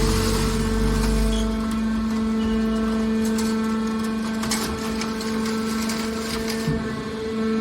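Hydraulic horizontal metal baler running, its power unit giving a steady hum. A heavier low rumble under it dies away in the first two seconds, and a few light knocks come midway.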